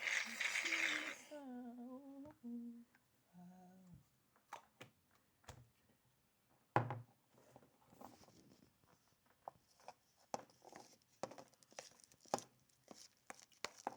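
A brief hiss, then a person humming a short tune for a few seconds, followed by a run of small sticky clicks and pops as fluffy slime is stirred and kneaded.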